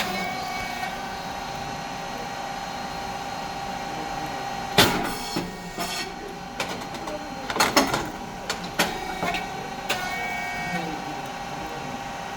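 Rice cake machine running through a cycle: a steady hum from its motor and hydraulic pump, a loud sharp crack about five seconds in, then a cluster of clacks and knocks a few seconds later.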